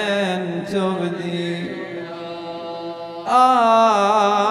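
A man's voice chanting an Arabic elegy as a slow lament, holding long, wavering notes on single words. The line sinks to a softer held note, then a louder new phrase breaks in about three seconds in.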